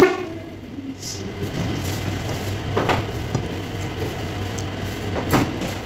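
Eating by hand: quiet chewing and fingers working rice on a plate, with two short sharp clicks about three and five and a half seconds in, over a steady low hum.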